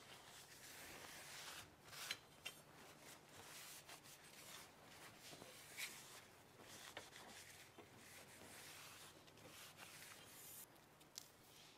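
Faint rubbing of an acetone-dampened cloth rag wiping down aluminium T-track rails, cleaning off dirt and grease before tape goes on. A few light ticks and knocks come from the rails being handled.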